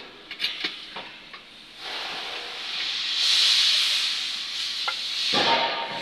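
A few light clicks and knocks, then a steady hiss from about two seconds in that grows louder and keeps going.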